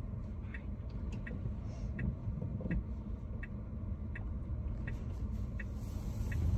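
Tesla turn-signal indicator ticking at an even rate, about three ticks every two seconds, over a low cabin rumble from the slow-moving electric car.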